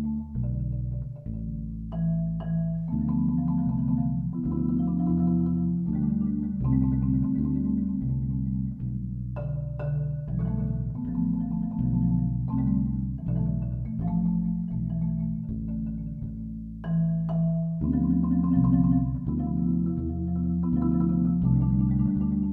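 Marimba played with four yarn mallets in duet with a fretless electric bass, in a slow, quiet piece. The bass holds low notes beneath the marimba's ringing chords and melody.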